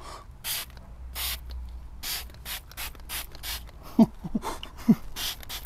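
Hand trigger spray bottle squirting fallout remover onto an alloy wheel: about a dozen short hissing sprays in quick, uneven succession. There are two brief vocal sounds about four and five seconds in.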